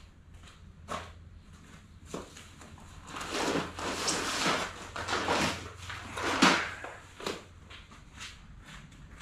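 Footsteps and single knocks, then a few seconds of loud rustling and scraping as seed bags on a tarp are grabbed and moved, loudest near the end of that stretch. A low steady hum runs underneath.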